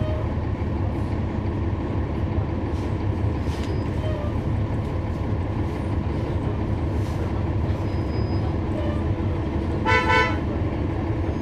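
Steady drone of a city bus's Cummins ISL9 diesel engine, heard from inside the cabin. A short horn toot comes about ten seconds in.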